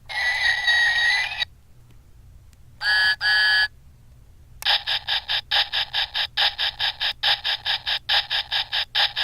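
Lionel Thomas the Tank Engine & Friends sound effects box playing its toy-train effects through its small speaker: a hissing burst with tones, two short toots, then a long run of even pulses at about four a second.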